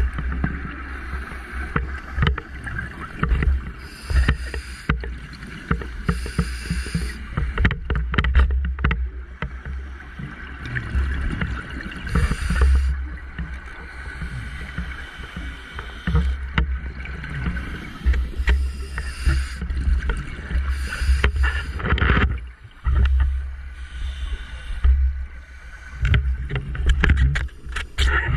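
Muffled underwater rumble heard through a GoPro's housing, with irregular short hissing and bubbling bursts from a scuba diver's gear and scattered small clicks.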